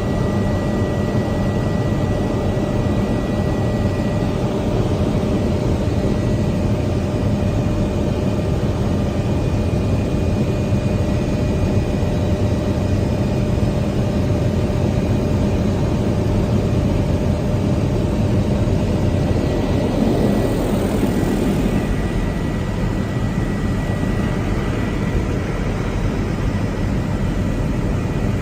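Steady drone of an aircraft in flight, with a few constant thin tones riding over the engine noise.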